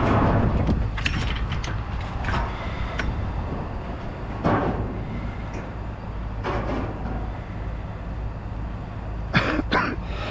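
A vehicle running with a steady low rumble, with a loud knock at the start and a few lighter clatters and swells over it.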